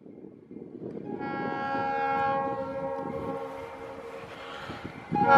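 Diesel freight locomotive air horn sounding a chord of several notes. A long blast starts about a second in, swells and then fades, and a second, louder blast begins near the end, all over a low rumble from the passing train.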